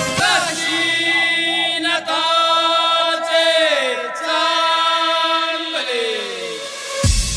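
Devotional sung chant on the soundtrack: a voice holds long notes with a wavering pitch, sliding down near the end. Drums come in just before the end.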